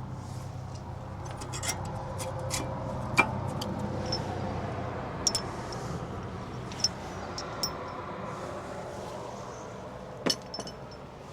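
Metal brake caliper parts and hand tools clinking and tapping as they are handled during reassembly: scattered sharp clicks, the loudest about three seconds in and near the end, over a steady low hum.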